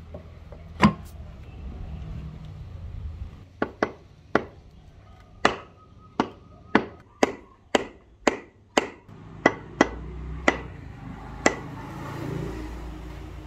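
Rosewood axe handle being knocked end-down against a hard surface to drive the axe head onto it: about fifteen sharp knocks, a few scattered at first, then about two a second through the middle.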